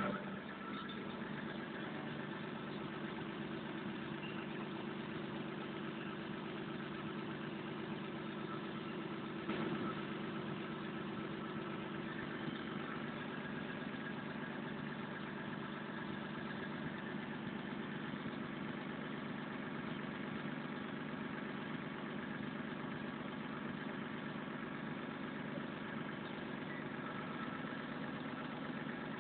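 Volvo 360 excavator's diesel engine idling steadily, heard from beneath the machine, with one brief knock about ten seconds in.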